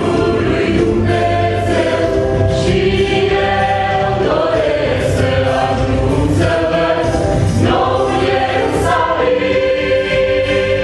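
Mixed choir of women and men singing a sacred song in parts, with sustained chords that change every second or two.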